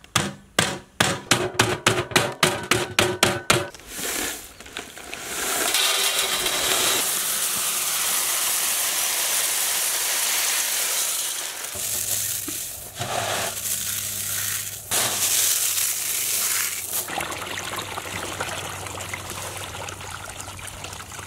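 A wooden mallet pounds a plastic packet of corn flakes in rapid blows, about four a second, crushing the flakes for the first few seconds. After that comes a long rustling pour of the crushed corn flakes into a steel bowl.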